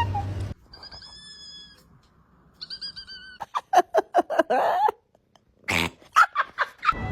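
Cats meowing in a string of short clips: two thin, high meows, then a rapid run of short, loud cries, then a few more loud calls near the end.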